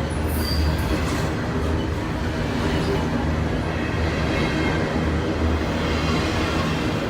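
Norfolk Southern freight train rolling past, its cars giving a steady rumble and rail noise.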